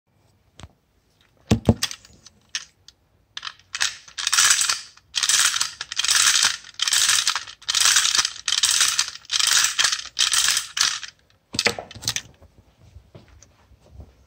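Clockwork spring of a tin toy motorcycle being wound with its key: about nine short bursts of ratchet clicking, one per twist, evenly spaced, after a single knock about a second and a half in.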